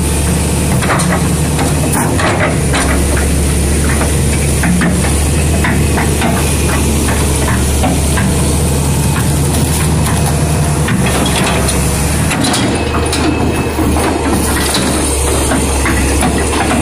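Diesel engine of a Caterpillar tracked excavator running steadily with a constant low drone, with scattered light clicks over it.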